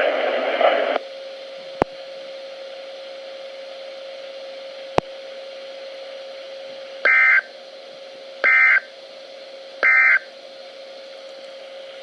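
Three short bursts of NOAA Weather Radio EAS/SAME digital data tones, about a second and a half apart, heard through a radio receiver's speaker over faint hiss and a steady low hum. These are the end-of-message code that closes the weekly test message.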